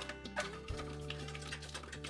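Background music of sustained chords over a low bass note, which changes to a new note a little under a second in, with a few soft clicks over it.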